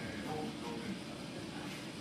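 Steady hall room noise with faint, distant voices.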